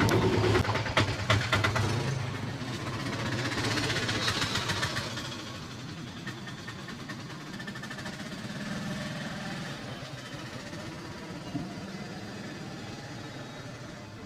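Rapid slapping and tapping of a percussive head massage in the first two seconds, over a low engine hum. Softer rubbing follows, then a steady street background.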